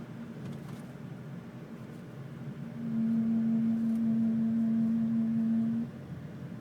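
A Peugeot 307 humming with a steady low drone. The hum swells much louder about three seconds in, holds for about three seconds, then drops back abruptly to a faint drone.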